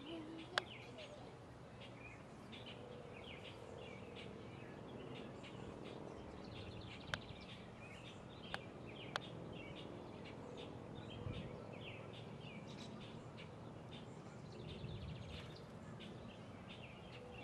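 Small birds chirping throughout, many short high chirps, with four sharp clicks standing out: one just after the start and three between about seven and nine seconds in.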